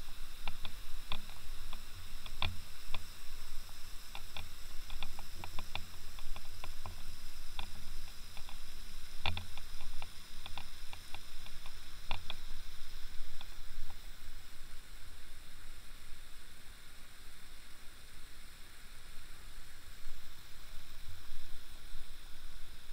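Irregular sharp clicks and light taps, some with a soft low thud, over a steady hiss. The clicks thin out and stop a little past halfway, leaving the hiss.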